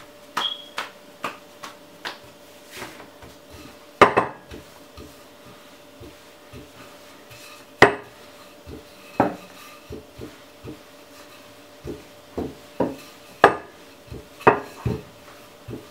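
Wooden rolling pin knocking and clacking against a countertop while roti dough is rolled out and turned, an irregular run of sharp knocks with a few much louder ones.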